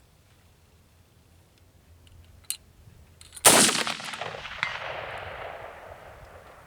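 A single shot from an AR-15 firing 5.56 M193 55 grain full-metal-jacket ammunition, with a long fading echo. A faint click comes about a second before it, and a brief sharp sound rises over the fading echo about a second after it.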